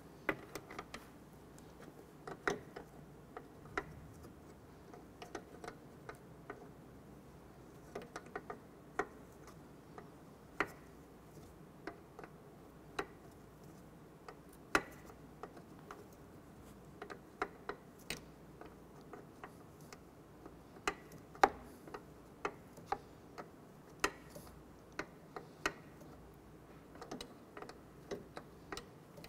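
Open-end wrench clicking and tapping against a brake line fitting as it is repositioned and turned to tighten the line into the master cylinder: scattered sharp metal clicks at an irregular pace, one louder one a little past the middle.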